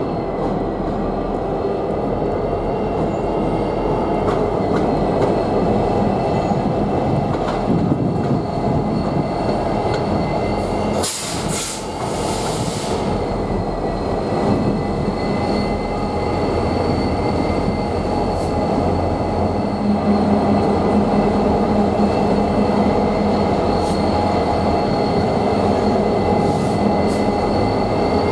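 Two Norfolk Southern diesel locomotives passing slowly: a steady engine rumble with a steady high-pitched whine over it. There is a short hiss about eleven seconds in, and the engine sound grows fuller in the last third.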